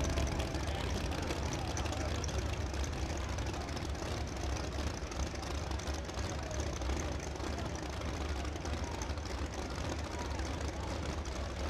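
Drag race cars' engines idling with a steady low rumble at the starting line, with crowd voices underneath.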